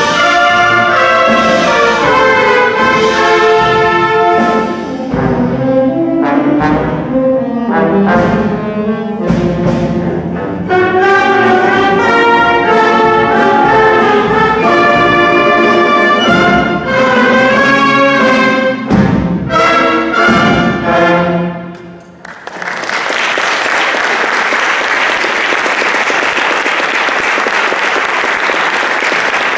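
Concert band of brass and woodwinds playing the closing bars of a piece, ending on a final chord about three-quarters of the way through. Then the audience applauds steadily.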